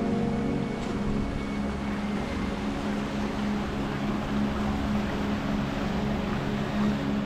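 Steady rushing roar of a waterfall, with background music playing underneath.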